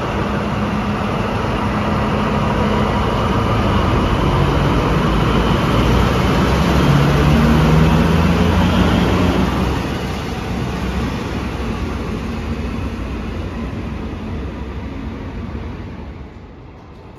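HŽ Cargo diesel locomotive passing close by with its engine running. The engine note and rumble grow to their loudest about halfway through, then fade as it moves away.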